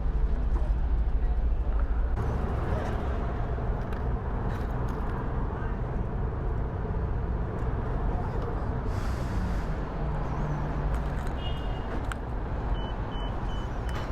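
Steady street-traffic and wind rumble heard from a rider's chest-mounted mic. Near the end, a vehicle's reversing alarm starts beeping at an even pace.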